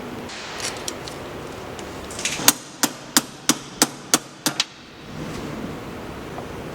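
Hammer blows on metal: a quick run of about eight sharp, ringing strikes over about two seconds, starting about two and a half seconds in, the first the loudest. The hammering is part of knocking a front drive axle out of the car.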